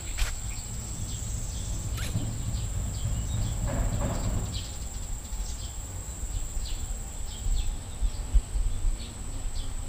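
Garden ambience: a steady high insect drone with small bird chirps scattered throughout, over a low rumble on the microphone with a few bumps near the end.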